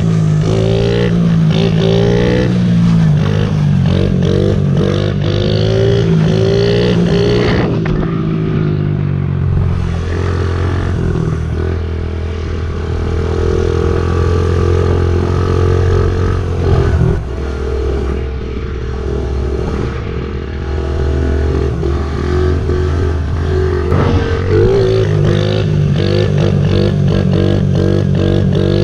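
Honda CRF50 pit bike's small four-stroke single-cylinder engine running while ridden. It revs up in repeated rising sweeps for the first several seconds, then holds a steadier, lower pitch through the middle, and revs up in rising sweeps again near the end.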